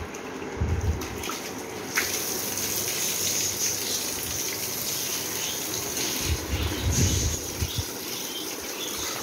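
Water spraying from a garden hose onto a tiled floor: a steady hiss that grows stronger about two seconds in. Low bumps come near the start and again around six to seven seconds in.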